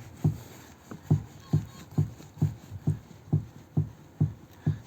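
Rear suspension strut knocking in a steady rhythm, a little over two dull knocks a second, as the car body is rocked. The knock comes from the strut itself, not felt at the piston rod, a sign of a worn or loose rear strut.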